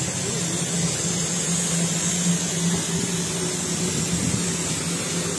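Darjeeling Himalayan Railway steam locomotive standing with steam up: a steady hiss with a low hum under it.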